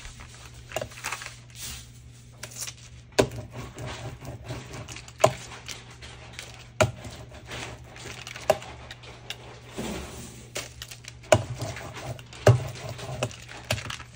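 Hand-handling of art tools on a craft mat: a paint applicator dabbing through a plastic stencil onto paper, and the stencil being lifted. There are scattered sharp taps and knocks every second or two, with paper and plastic rustling between them, over a steady low hum.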